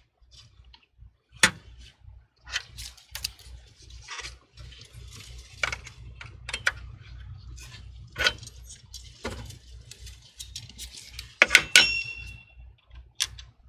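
Gloved hands handling computer parts inside a PC case: scattered light clicks, taps and rustling, with a sharp metallic clink that rings briefly near the end.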